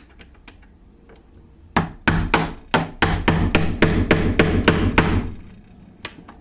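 A hammer striking a locked door again and again, a fast run of about fifteen hard blows, roughly four a second, starting about two seconds in and stopping about a second before the end, while breaking in by brute force.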